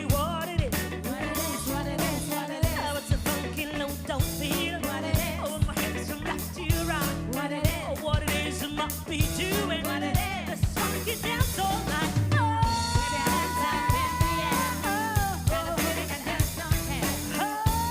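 Live funk and soul band playing a steady drum-kit groove over bass, with melodic lines above. About twelve seconds in, a long sustained lead note comes in.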